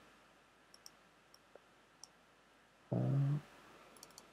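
Faint computer mouse clicks, a handful spread out and a quick cluster near the end.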